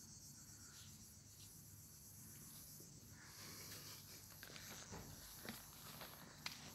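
Near silence: a faint, steady high-pitched insect chorus outdoors, with a few soft footsteps on paving from about three seconds in.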